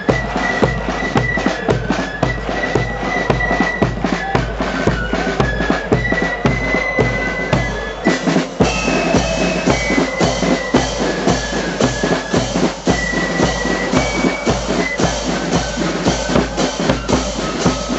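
Marching band playing: a bass drum and snare drums beat out a steady march rhythm under a high, sustained melody. About eight seconds in, the tune moves up to higher notes.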